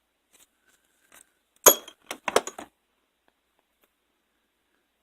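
Metal hand tools clinking in a toolbox drawer: one sharp clink under two seconds in, then a quick run of smaller clinks.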